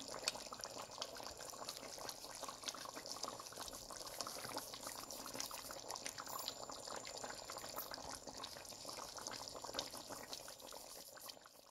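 Beef and potato curry simmering in a metal pot: a steady run of small bubbling pops and crackles that cuts off just before the end.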